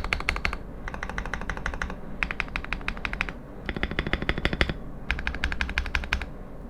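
Fast typing on a Fantech Maxfit61 mechanical keyboard in an acrylic case with KTT Blue Jacaranda switches: rapid key clacks in five quick runs of about a second each, separated by short pauses.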